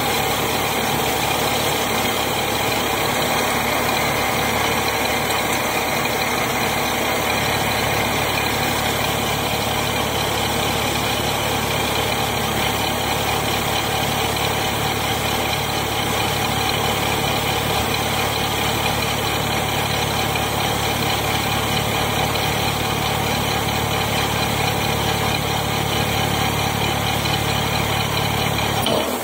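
Metal lathe running at a steady speed, its motor and spinning chuck making an even mechanical drone with a steady pitch.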